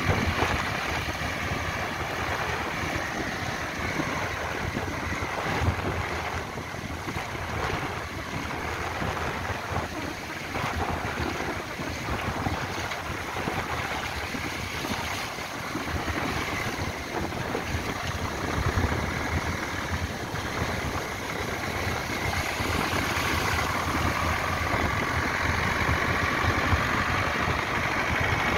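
Blue Ford farm tractor's engine running in the shallows, mixed with waves washing in and wind buffeting the microphone.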